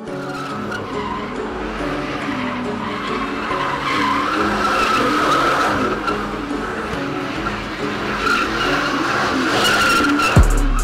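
Car burnout sound effect: an engine revving hard while the tyres squeal and spin, ending in a deep boom near the end.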